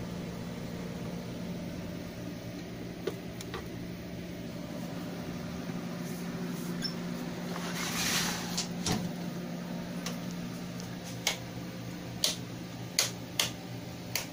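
A steady low machine hum fills a small room, with a short swell of rustling about eight seconds in and five sharp clicks over the last few seconds.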